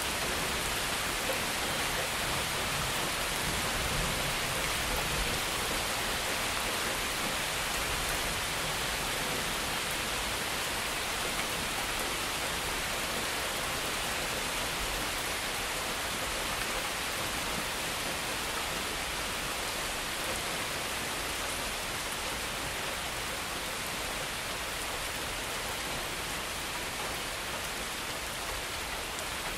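Heavy rain falling steadily, with rainwater running through a gutter.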